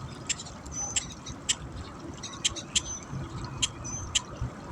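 Small birds chirping: short, sharp high chirps, some with a brief whistled tail, repeating irregularly about three or four times a second over low outdoor rumble.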